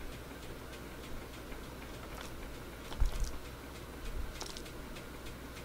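Close-up eating sounds: chewing cheesy instant noodles, with a few faint clicks of a metal fork and a dull low bump about three seconds in.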